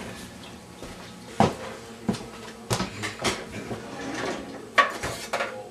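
Kitchen drawers and cupboard doors being opened and shut, with utensils clattering inside: a string of sharp knocks and rattles, the loudest near the end.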